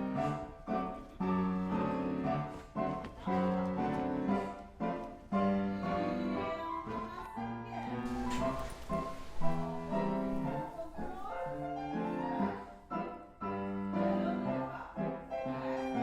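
Background music led by piano, with notes played in a steady rhythm.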